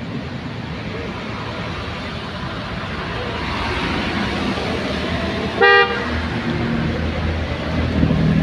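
Road traffic noise with a single short vehicle horn toot about two-thirds of the way through. A vehicle engine rumbles close by after it.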